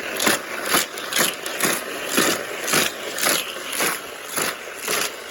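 Battery-powered booster of a Hot Wheels Criss Cross track whirring as toy cars are flung through it one after another, a short rushing clatter about twice a second as each plastic car passes through the spinning wheels and along the track.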